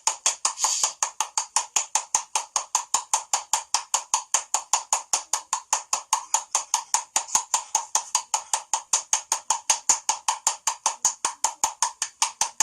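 Rapid, perfectly even woodblock-like ticking, about six clicks a second, which does not change.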